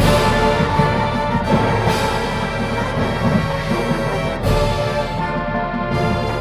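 High school marching band playing its show music: loud held chords with fresh attacks a few times, over busy low drumming.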